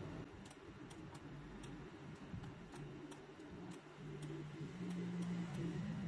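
Computer mouse clicking: faint, sharp ticks about twice a second, a little irregular. Under them is a low background hum that grows a little stronger in the second half.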